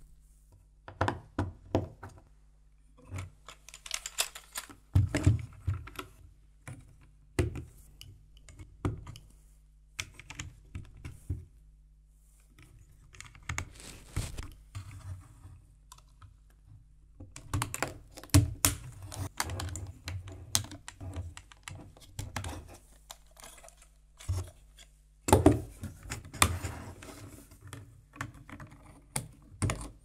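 LEGO Technic plastic parts clicking and knocking as pins and beams are handled and pressed onto a model car chassis: irregular sharp clicks and taps in clusters, with a few louder knocks about five seconds in and near the end.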